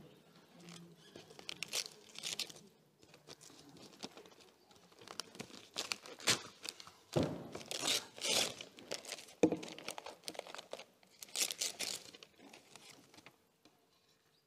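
Gift wrapping being torn and crumpled as a present is unwrapped by hand, in several bursts of tearing and rustling, the loudest in the middle.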